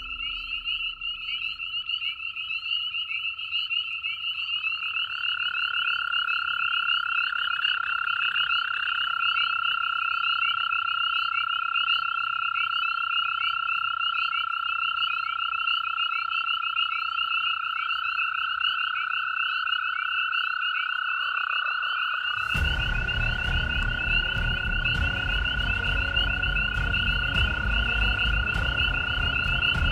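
A breeding chorus of American toads: long, steady, even-pitched trills that overlap, with another toad joining at a slightly higher pitch a few seconds in. Above them runs a constant higher, rapidly pulsing chorus. About two-thirds of the way through, a loud low rumble with crackles sets in.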